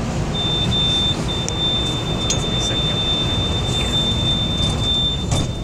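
A train's door warning buzzer sounds one steady high-pitched tone with a brief break about a second in, signalling that the doors are about to close. Underneath is the low rumble of the standing train.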